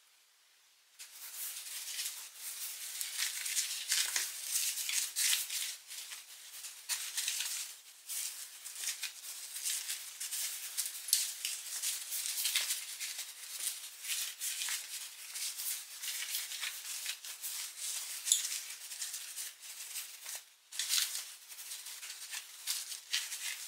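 Small coating applicator pad rubbed over the painted spokes of an alloy wheel: an irregular, scratchy rubbing in many short strokes that starts about a second in, with a brief break near the end.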